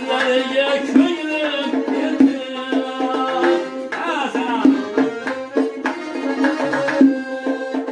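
Live folk music on a button accordion and a long-necked lute: the accordion holds a steady drone under a quick, wavering melody, with sharp struck beats about once a second.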